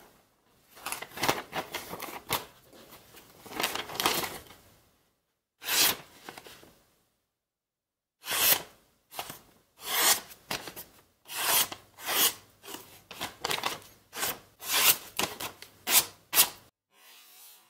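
A small kiridashi carving knife slicing through a sheet of lined paper, testing the freshly made edge. Short, crisp cutting strokes: a few in the first five seconds, then after a pause a run of about a dozen, roughly one and a half a second.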